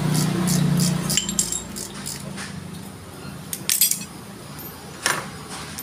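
Small metal clinks and clicks of motorcycle disc-brake parts being handled as the caliper and pads are taken off, with a sharp cluster of clinks a little past halfway and a single clink near the end. A low engine hum fades out about a second in.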